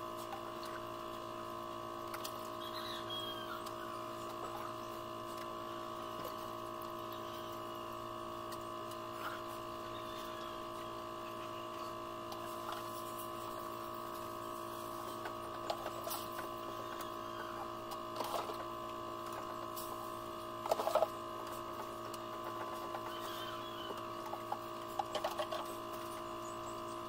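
Steady electric motor hum, made of several constant tones, with a few brief knocks and clatters in the second half; the loudest comes about two-thirds of the way through.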